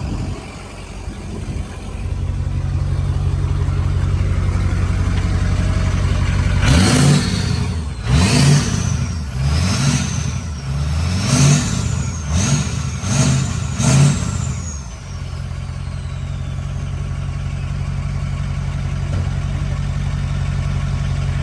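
Ford 6.0L Power Stroke V8 turbodiesel idling, then revved six times in quick succession with the turbo whistling up and falling away on each rev, then settling back to idle. The turbo noise is freshly exposed by a newly fitted cold air intake.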